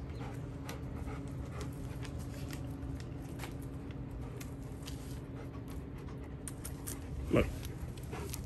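A Rottweiler panting, with one short, louder sound about seven seconds in.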